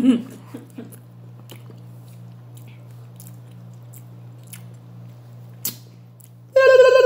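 Faint eating sounds: fingers picking through corn on a plate and small chewing clicks, over a steady low hum. Near the end a loud, steady, high-pitched tone with a wavering start lasts about a second.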